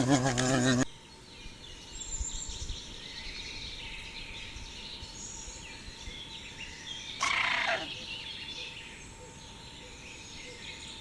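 A loud warbling animal call cuts off about a second in. After it, birds chirp in the background, and one short call falls in pitch about seven seconds in.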